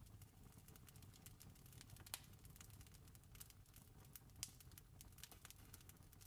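Campfire crackling: faint, irregular snaps and pops over a soft low rumble, with two sharper pops about two and four seconds in.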